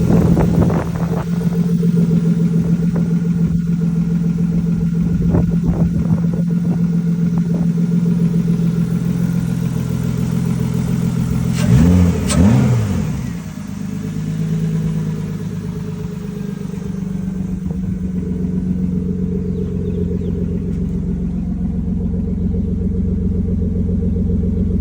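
BMW E36 engine idling steadily, blipped twice in quick succession about halfway through, then settling back to idle. It is running again after a crank-no-start fault tied to the EWS immobiliser.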